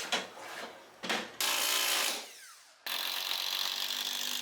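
A couple of knocks, then a power drill running briefly and spinning down with a falling pitch, followed by a steady mechanical whir that starts suddenly.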